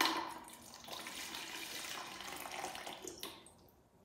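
Vinegar poured from a plastic jug into a plastic pitcher: a steady stream of liquid that starts sharply and stops a little after three seconds in.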